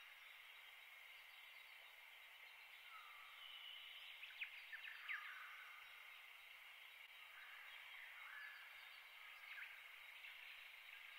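Faint outdoor ambience: a steady high hiss with distant small birds chirping and giving short whistled calls. A few sharper chirps come together about four to five seconds in.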